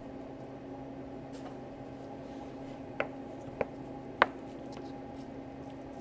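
Steady background hum with three small sharp clicks, about three, three and a half and four seconds in, the last the loudest, from gloved hands handling a stripped laptop power cable and its plug.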